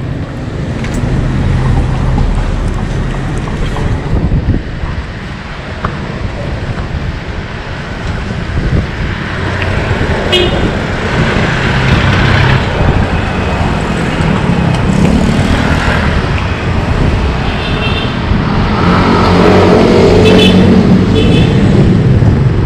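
Street traffic: motor vehicles running past, with a horn giving quick short toots a few times in the second half. The traffic grows louder near the end.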